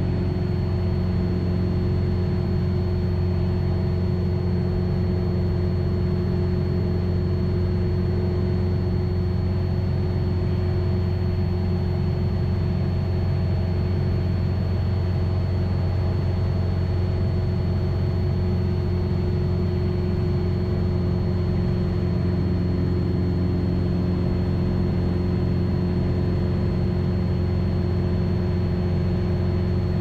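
Single-engine light aircraft's piston engine and propeller running steadily at constant power, heard from inside the cockpit.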